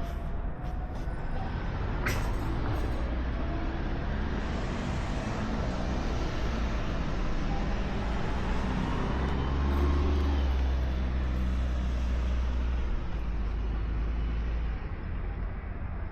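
Road traffic with a heavy vehicle passing close: a deep engine rumble builds, is loudest about ten seconds in, and fades near the end. A single sharp click sounds about two seconds in.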